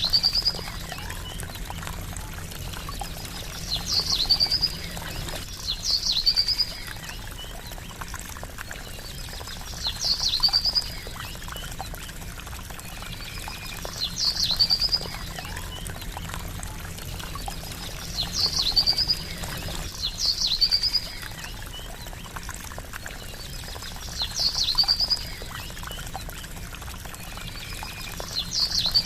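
Steady trickling water with a bird's short, high, squeaky call recurring every few seconds, about eight times.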